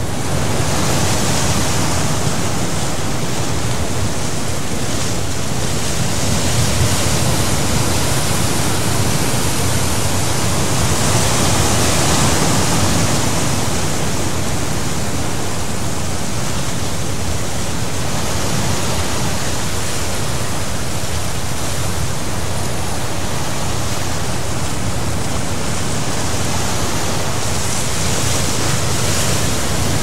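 Sea surf heard from a cliff top: a steady wash of breaking waves that slowly swells and eases.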